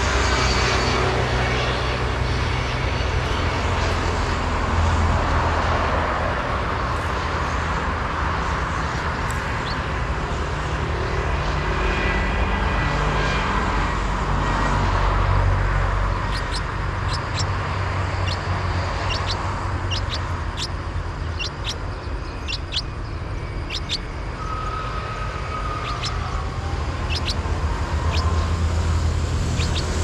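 Steady low background rumble throughout, with a run of short, high chirps from about halfway on as the parent bird reaches the nest and the chick gapes: nestling begging calls at feeding.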